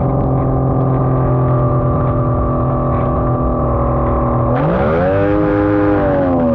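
A 60 hp racing powerboat's outboard engine heard on board, running at a steady pitch. About four and a half seconds in it revs up sharply and holds the higher pitch, then starts to ease off near the end.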